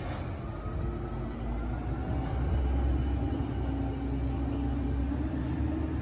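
Waste Management Amrep automated side-loader garbage truck, running on natural gas, pulling away: a steady low engine rumble whose note climbs slightly about two seconds in as it accelerates.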